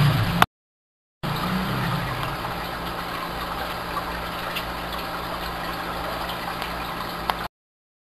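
Aquarium air pumps humming steadily, with the hiss and bubbling of air diffusers and filters in a large fish tank. The sound drops out for under a second near the start, then resumes and stops shortly before the end.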